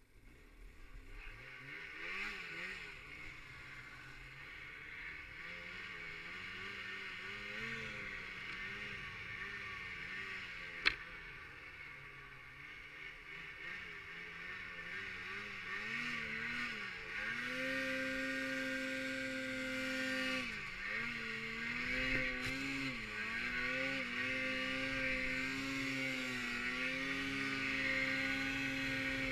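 Snowmobile engine building up from quiet and then repeatedly revving up, holding and easing off as the throttle is worked while riding, with a hiss from the track over it. There is one sharp click about eleven seconds in.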